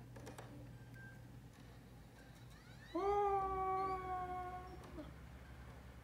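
A single long, high-pitched vocal cry, starting about three seconds in: it rises briefly and is then held steady for about two seconds before stopping.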